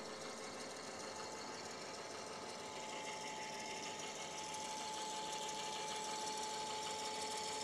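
A 48-volt electric motor turns a sail drive unit that has no gear oil in it yet, running quite silently with a steady whir. A thin whine sets in about a second in, and the sound grows slightly louder toward the end. The unlubricated drive adds some noise.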